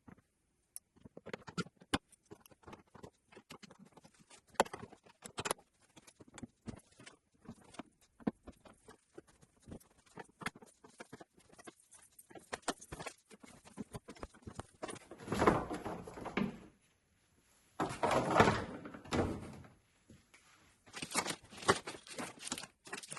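A run of small, irregular clicks and knocks from hands working with tools and parts, with three longer, louder stretches of rubbing or scraping in the second half.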